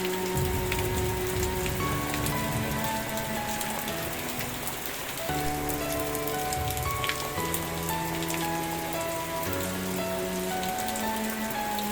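Steady rain with scattered individual drop clicks, over soft slow music whose sustained notes change every second or two.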